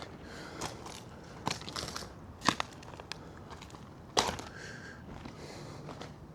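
Footsteps crunching over debris, with a few sharp cracks, the loudest about two and a half and four seconds in.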